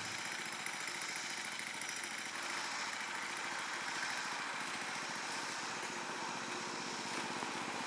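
Faint, steady running of a small engine.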